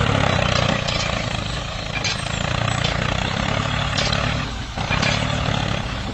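Tractor engine running steadily at an even pitch, a low drone with a hiss over it, dipping briefly near the end.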